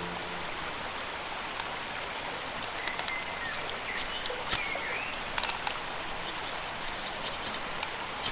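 Riverside ambience: a steady insect drone over running river water, with a few short chirps about midway and some light clicks.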